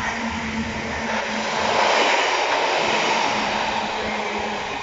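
A train running on the line through the station, its rumble swelling to a peak about two seconds in and then easing off, over a steady low hum.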